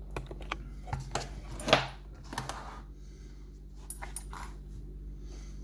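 Small hard objects being handled and set down on a bench: a string of sharp clicks and knocks, the loudest a brief scrape or clatter a little under two seconds in.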